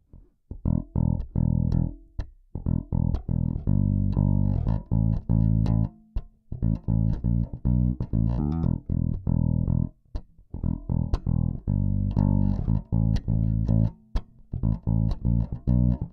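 Solo five-string electric bass (Schecter Stiletto Extreme-5 with Ernie Ball Regular Slinky strings) played as a run of plucked notes, each with a sharp attack and ringing sustain, broken by a few short pauses and a quicker passage about halfway through. Recorded direct with the onboard preamp flat and no EQ or compression, so the tone is dry and unprocessed.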